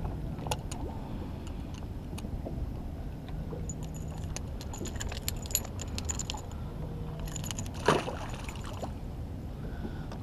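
Metal fishing pliers clinking against a surface-iron jig and its hook while a small barracuda is unhooked at the boat's side, a quick run of small metallic clicks in the middle. About eight seconds in comes a single short splash as the fish drops back into the water, over a low steady rumble.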